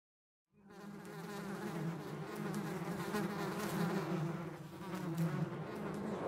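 Flies buzzing in a swarm, a steady wavering drone that starts about half a second in.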